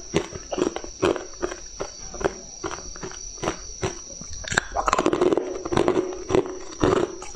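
Pieces of hard frozen coloured ice bitten and chewed close to a lapel microphone: a rapid run of sharp, irregular crunches and cracks, several a second. A steady high-pitched whine sits under it throughout.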